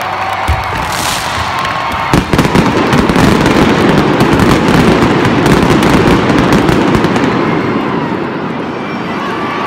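Arena pyrotechnics going off: a sharp bang early, a louder bang about two seconds in, then several seconds of dense, rapid popping from the fountains and mines that fades near the end.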